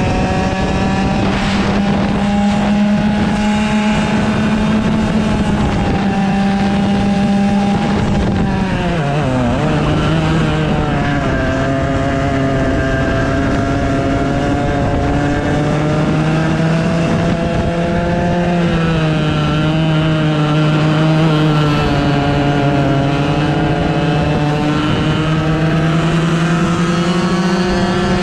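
100cc two-stroke go-kart engine running hard at high revs, heard from onboard. Its pitch drops sharply about nine seconds in as the throttle comes off, then holds lower and slowly climbs again.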